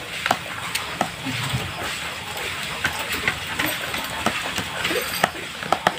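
Plastic scraper mashing raw tilapia flesh against a plastic tray: steady scraping with irregular light clicks and taps.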